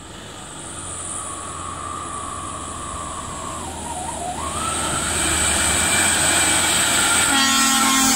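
Diesel engines of loaded heavy trucks labouring up a steep grade, growing steadily louder as they approach and pass close by. A horn sounds briefly near the end.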